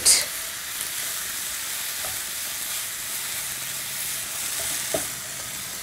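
Sliced mushrooms, onions and tomato puree sizzling steadily in oil in a hot frying pan as they are stirred with a wooden spatula, with a soft knock about five seconds in.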